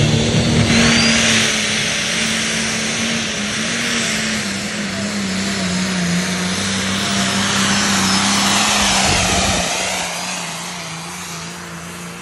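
Diesel pulling tractor running flat out as it drags a weight-transfer sled down the pulling track, its engine note holding steady and then falling off about ten seconds in.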